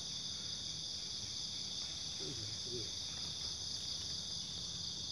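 Steady, high-pitched insect chorus, an unbroken even drone.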